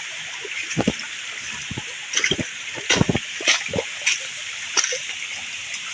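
Waterfall and stream water rushing in a steady hiss, with several scattered sharp knocks and splashes over it.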